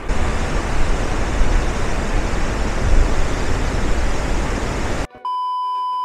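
Loud rushing of a fast, silt-laden river below a suspension bridge, with wind buffeting the microphone. About five seconds in it cuts off abruptly to a steady test-tone beep with faint static, a TV colour-bars transition effect.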